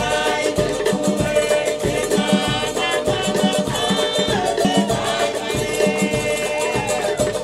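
Upbeat Latin-style background music with a steady beat and melodic lines.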